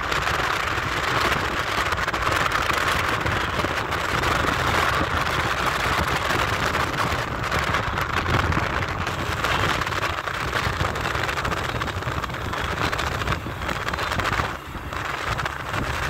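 Steady rush of wind and tyre noise from a car driving along a road, heard from inside the car at its side window, dipping briefly near the end.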